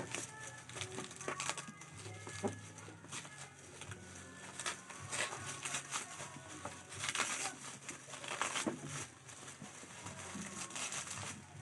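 Plastic parcel packaging being handled, crinkled and torn open, in irregular rustling bursts.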